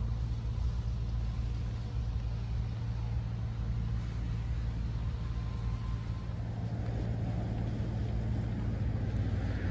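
Road traffic: a steady low rumble of passing vehicles, swelling slightly near the end.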